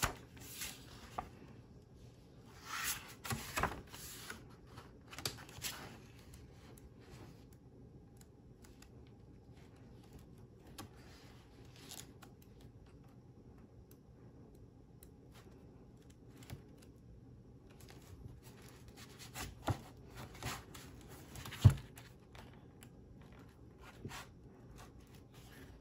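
Pages of an art book being turned and handled: paper rustling and sliding in a few short bursts, with a quiet stretch between them and a sharp tap near the end.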